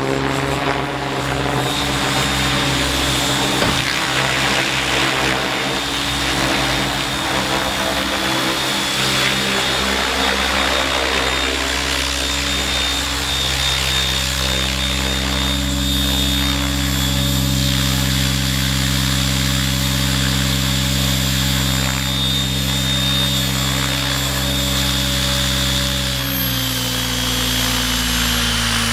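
Radio-controlled model helicopter's motor and rotor running in flight, unsteady at first, then a steady hover with a high whine. Near the end the pitch steps down as the helicopter settles onto the ground.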